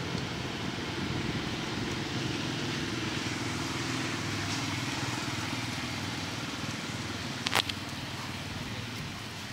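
Steady rumble of a motor vehicle engine running, with a couple of sharp clicks about seven and a half seconds in.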